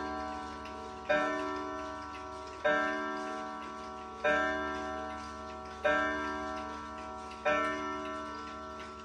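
Hamilton Headmaster wall clock striking the hour on its gong: five slow strikes about a second and a half apart, each ringing out and fading before the next, the tail end of its count of twelve o'clock.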